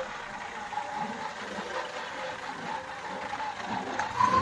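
Kubota A211N compact tractor's diesel engine running quietly at light throttle while driving, its note rising as it picks up speed near the end.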